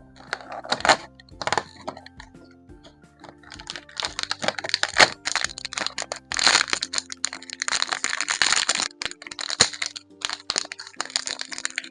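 Plastic toy packaging crinkling and crackling as it is handled and opened, in several bursts, over soft background music.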